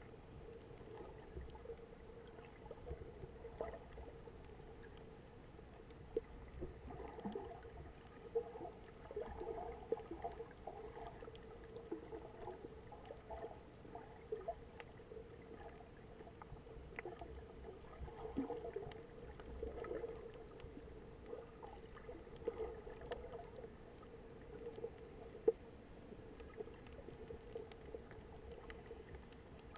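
Underwater sound picked up by a submerged camera over a coral reef: a steady faint hum with muffled water movement and scattered small clicks and crackles.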